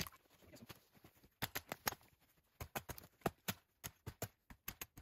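Dead branches being snapped and knocked off a log: several quick runs of sharp cracks and knocks, three or four at a time.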